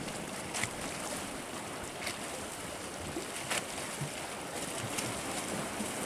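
Sea waves washing against the rocks, with wind on the microphone, and a few faint sharp clicks about every one and a half seconds.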